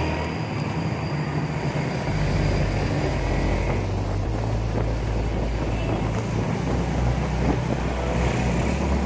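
Motorcycle engine running while riding in traffic, its note shifting a few times with the throttle, with wind noise on the microphone.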